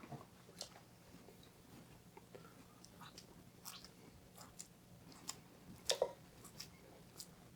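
Faint, scattered wet squelches and soft taps of hands pressing and shaping raw ground-beef kebab mixture, with a louder squelch about six seconds in.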